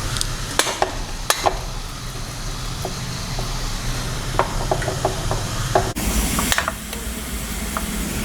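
Spoon scraping and tapping on a steel idli plate as coarse dal batter is patted flat, with a run of quick small taps in the middle, over a steady hiss from the steamer's boiling water. Just before six seconds in the background changes abruptly.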